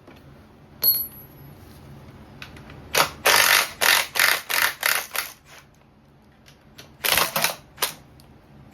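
Metal hand tools and steel bolts clicking and clinking during engine teardown: one sharp clink with a brief metallic ring about a second in, then a quick run of about eight clicks, roughly three a second, and a few more clicks near the end.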